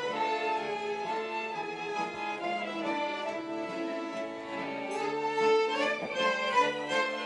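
Live folk band of two violins and an accordion playing a Roma dance tune, the violins carrying the melody.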